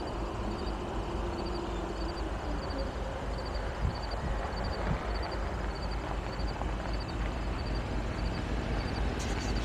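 BNSF coal train rolling past, a steady rumble of the cars on the rails, with a faint high chirp repeating about twice a second.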